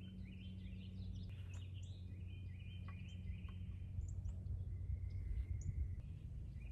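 Wild birds chirping and whistling, many short calls one after another, over a steady low hum of outdoor background noise. A couple of faint knocks come from the wooden easel being adjusted.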